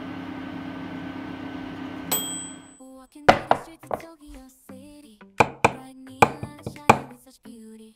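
Oven running with a steady hum, then a single bright ding about two seconds in as the hum stops. After that comes a quick series of sharp clinks and knocks, with short pitched notes between them.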